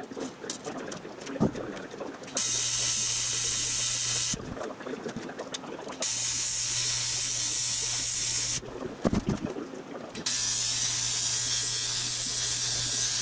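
AC TIG welding arc on aluminium tubing, buzzing and hissing steadily in three runs of about two to four seconds each as beads are laid. Between the runs come clinks and knocks, the sharpest about a second in and near the middle.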